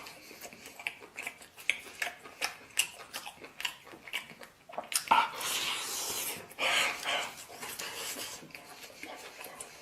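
Eating at the table: many light clicks and knocks of utensils against a bowl or plate, with two louder breathy, rushing noises about five and seven seconds in.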